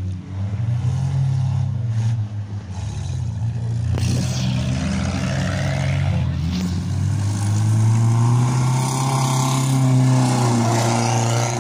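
Car engines revving hard as race cars drive past on a grass track. The engine pitch climbs and grows loudest near the end as a car accelerates by.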